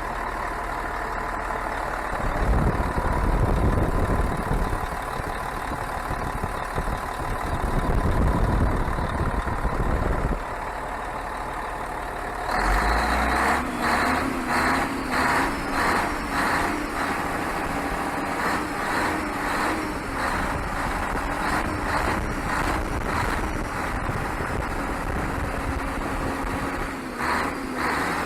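Scania 112 truck's inline-six diesel running through a straight exhaust, freshly set up after its injection pump and injectors were regulated. It is revved up twice in the first half, then from about halfway runs on with a steady drone and an even, pulsing beat.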